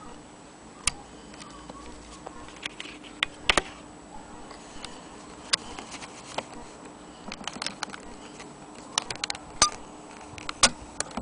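Irregular metallic clicks and taps from the antique Maxfield Agenoria sewing machine's parts as it is handled, some coming in small clusters, over a faint steady hum.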